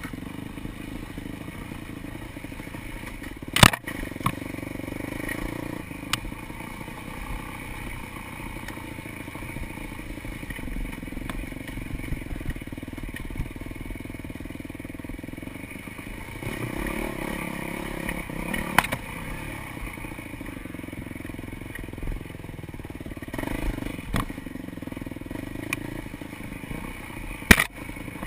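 Dirt bike engine running on a rough forest trail, its note swelling and easing with the throttle, with the bike rattling over the bumps. A few sharp knocks stand out, the loudest about four seconds in and another near the end.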